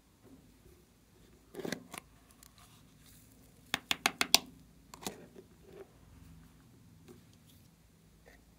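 Hard plastic clicks and taps from a small round plastic container as it is handled and knocked over the dish to shake out gold glitter and sequins. There are a couple of clicks, then a quick run of about five sharp taps about four seconds in, and one more a second later.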